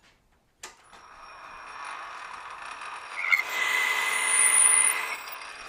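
Metal lathe: a click, then the spindle running and a parting tool cutting into round stock to part off a ring, the cut growing louder with a high squeal for a second or two before easing back to the steady run of the lathe.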